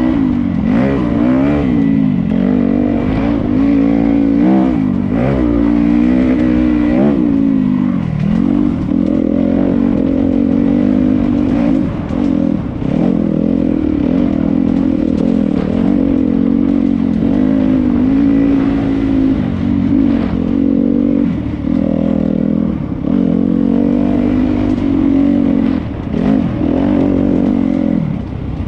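Dirt bike engine running under load, its pitch rising and falling over and over as the throttle is opened and closed, with quicker up-and-down revving in the first several seconds and steadier running after that.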